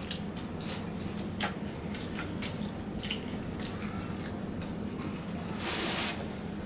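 Eating by hand: fingers squishing fried rice and fried chicken on the plates, with chewing and many small wet mouth clicks. A short breathy hiss comes about six seconds in.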